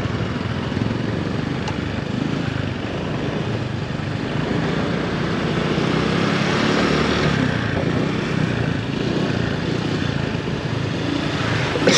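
Motor scooter being ridden at a steady pace, its small engine running under a continuous rush of road and air noise heard from the rider's seat. A short sharp sound comes right at the end.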